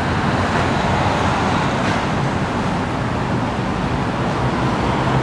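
Steady urban background noise, a constant hum of road traffic with no distinct events.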